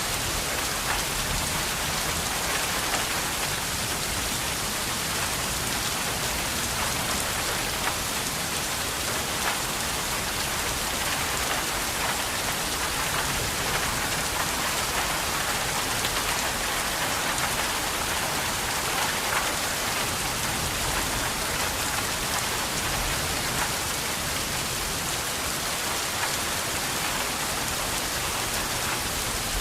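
Steady rain falling on a surface, an even hiss of many fine drops with scattered individual drop ticks.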